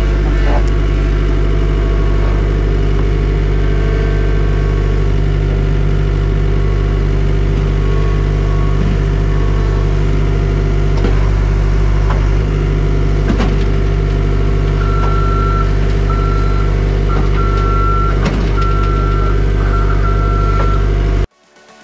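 Heavy vehicle engine running steadily. From about fifteen seconds in, its reversing alarm beeps roughly once a second, and the sound cuts off suddenly near the end.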